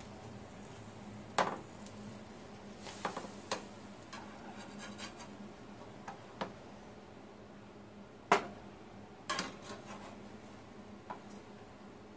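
A slotted metal spatula clicking and scraping against a nonstick stovetop griddle while blue corn pancakes are flipped: about ten scattered sharp knocks, the loudest about eight seconds in, over a faint steady hum.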